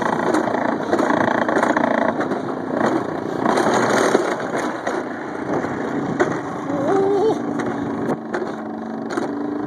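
Alpine coaster sled running along its tubular steel rail: a steady rolling rattle of the wheels on the track.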